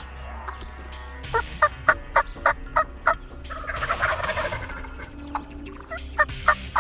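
Wild turkeys calling: a run of about seven short yelps, then a gobbler gobbling with a rattling warble about four seconds in, and a few more yelps near the end.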